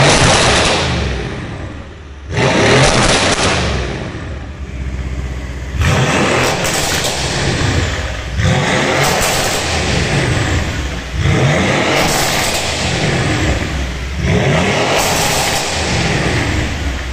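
Mercedes-AMG C63 S W205's 4.0-litre twin-turbo V8 with Akrapovic titanium catback and IPE decat downpipes, revved again and again in short blips, each rising then falling, roughly every two to three seconds. Very loud.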